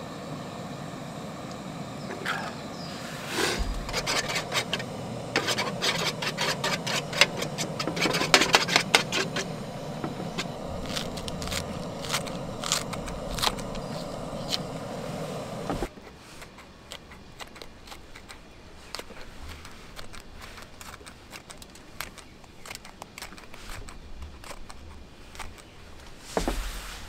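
Egg frying in a pan on a camp stove: a steady hiss with dense crackling and spitting, and clinks of a utensil against the pan. About halfway through it drops suddenly to a quieter stretch of scattered crackles and clicks.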